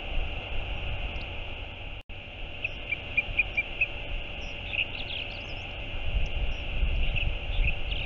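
Small birds chirping in quick runs of short, high notes over a steady outdoor rumble of wind and sea. The sound drops out completely for an instant about two seconds in.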